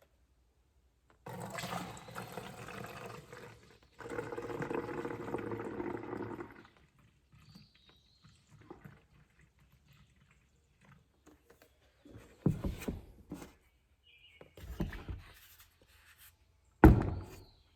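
Liquid car wash soap poured through a funnel into a foam cannon's plastic bottle, in two pours, the second louder. A few knocks of handling follow, the loudest near the end.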